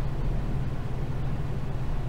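Steady low drone of room fan and air-conditioner noise, an even hum with a hiss above it.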